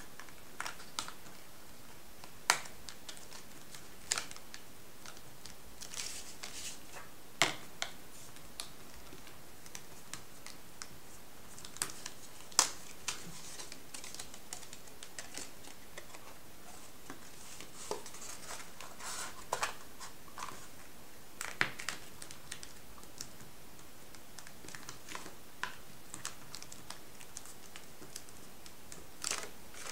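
Metallised paper being folded and creased by hand: scattered, irregular crinkles and sharp clicks, a handful much louder than the rest.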